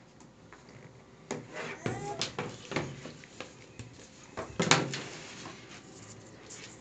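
Cardboard tablet box being opened by hand: the lid is worked off the base with a few rubbing, scraping knocks, the loudest about two-thirds of the way through as the lid is moved aside and put down.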